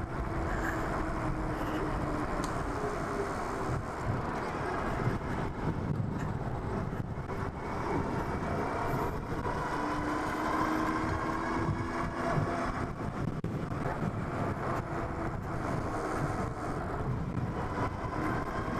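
Riding noise from a Super73 S2 electric bike under way: a steady rush of wind and tyre noise with a faint electric-motor whine that slowly rises and falls in pitch as the speed changes.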